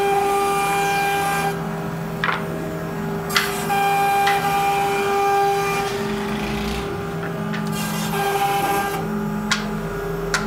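CNC router running: a steady whine, with higher tones that switch on and off every second or two as its motors move, and a few sharp clicks.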